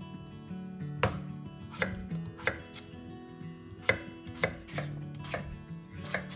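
Kitchen knife cutting food on a cutting board: about eight separate, unhurried cuts, each a sharp tap, spaced irregularly.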